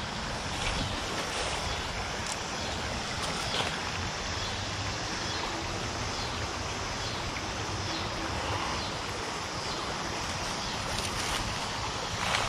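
Steady rushing noise of flowing creek water.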